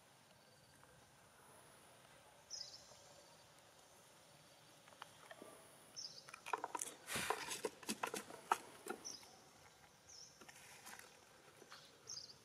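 A baby macaque bites and handles a cardboard drink box, making a run of crackles and crinkles in the middle. A few short, high chirps that fall in pitch come now and then.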